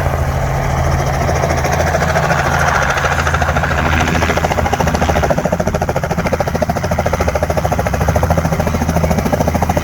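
Tour helicopter arriving back at its pad, its rotor blades chopping in a rapid, even beat over a low steady engine hum. The beat grows stronger about halfway through as it comes in close.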